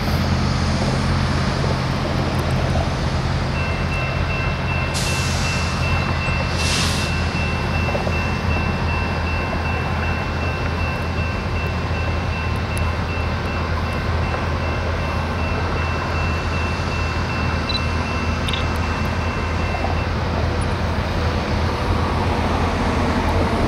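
BNSF diesel locomotive running at low throttle: a steady, deep engine rumble. A faint high whine runs through the middle, and there are two short hisses about five and seven seconds in.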